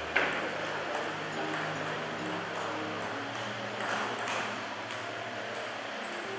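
Table tennis rally: the ball clicking back and forth off the bats and the table every few tenths of a second, with one sharp, louder hit just after the start.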